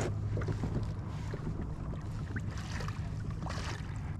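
Wind and water noise around a fishing kayak at sea, over a steady low hum, with a few faint knocks.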